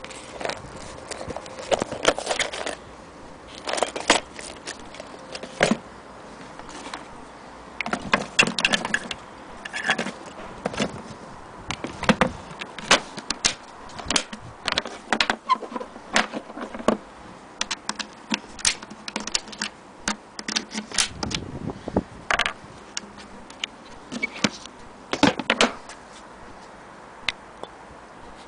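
Irregular clicks and knocks of a sewing machine carrying case being handled: its lid and metal latches clacking as it is closed and fastened.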